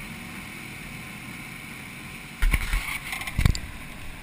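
Knocks and bumps on a kart-mounted camera as it is handled: two sharp thumps about halfway through and one more near the end, over a steady faint hiss.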